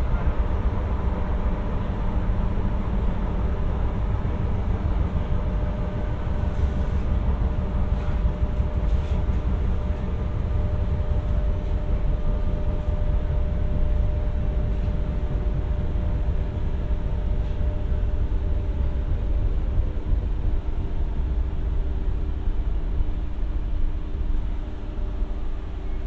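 Renfe Class 447 electric commuter train running: a steady low rumble with several steady motor tones, easing off slightly near the end.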